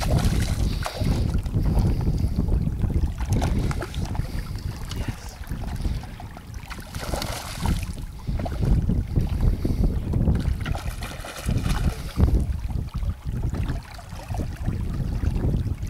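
Wind buffeting the microphone in gusts, with splashing at the water's surface as a hooked trout thrashes near the bank.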